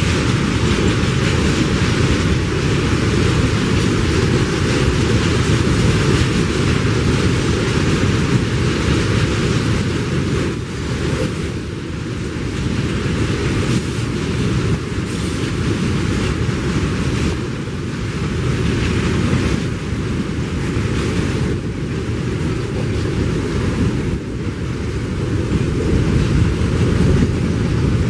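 Empty freight wagons, tank cars followed by gondolas and hoppers, rolling steadily past at close range: a continuous rumble of steel wheels on the rails.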